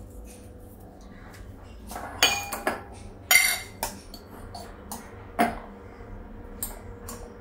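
Stainless steel spoon and utensils clinking and knocking while spices are spooned out: a few sharp metallic clinks with a short ring, the loudest about two seconds and three and a half seconds in.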